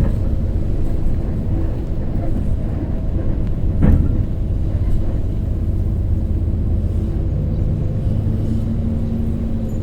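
Shuttle bus running at a steady low engine drone with road rumble, with a single sharp knock about four seconds in.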